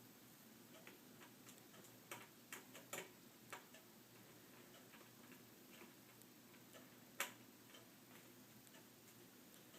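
Faint, irregular small clicks and ticks of a small screwdriver working the tiny mounting screws of a laptop screen, in a cluster about two to four seconds in and one sharper click about seven seconds in, over near silence.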